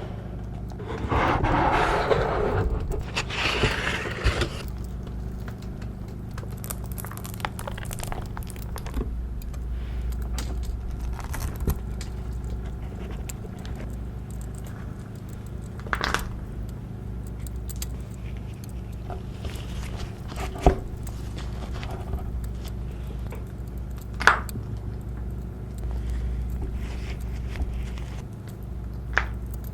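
Syrian hamster eating: small scraping, rustling and crunching noises, louder in a stretch near the start, with scattered sharp clicks, over a steady low hum.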